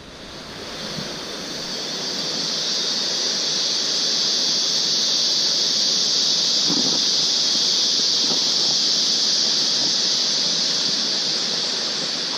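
A loud, steady, high-pitched insect drone that swells over the first couple of seconds and then holds.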